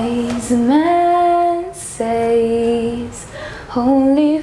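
A woman singing slow, long held notes, sliding up into one of them, with short breaths between phrases.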